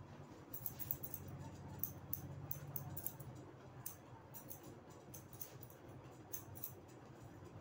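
Straight razor scraping through beard stubble in short strokes: faint, irregular crisp crackling clicks.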